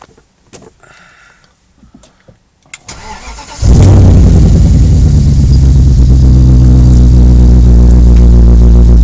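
BMW E34 540i's M60 4.0-litre V8 starting: a few faint clicks, a short spell of cranking on the starter, then it catches about three and a half seconds in and settles into a loud, steady idle.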